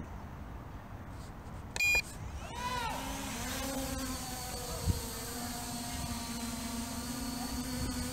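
A short electronic beep, then the MJX Bugs 5W quadcopter's brushless motors spin up with a rising whine about two and a half seconds in and settle into a steady idle whine as the motors are started before takeoff.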